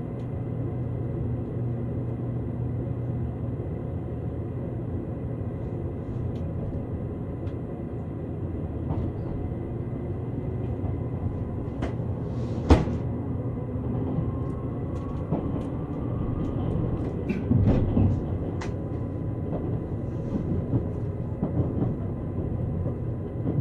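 Inside the compartment of a JR Kyushu 787 series electric train pulling out of the station: a steady low rumble of the running train. A single sharp knock comes about halfway through, and a few heavier thumps follow a few seconds later.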